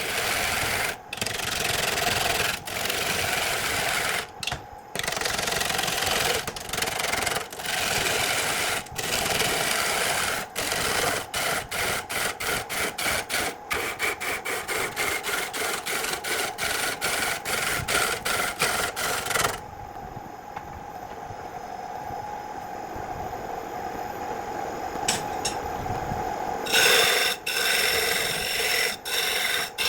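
Wood being rasped and rubbed by hand, in quick back-and-forth strokes. About two-thirds through the rasping stops for several seconds, leaving a quieter steady hum, then starts again.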